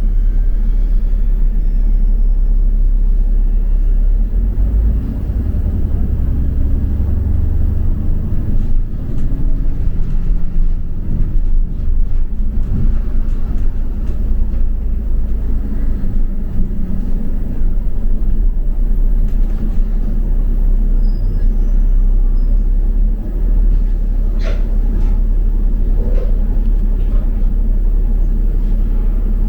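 A double-decker bus driving, heard from inside the bus: a loud, steady low rumble of engine and road noise, with the engine note shifting as the bus speeds up and slows.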